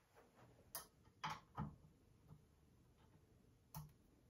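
A handful of faint, irregularly spaced clicks and taps as a fitting on an exercise bike's upright post is turned and handled by hand during assembly.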